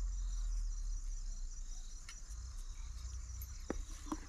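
Crickets trilling steadily, a continuous high shrill over a low rumble. Near the end come a few light clicks of a spoon against a steel bowl as the batter is stirred.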